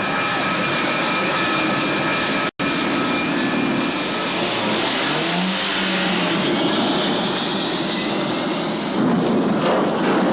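Loud, steady engine roar with high, steady whining tones, like jet turbines running on a carrier flight deck. The sound cuts out for an instant about two and a half seconds in, and a brief low tone rises and then levels off around the middle.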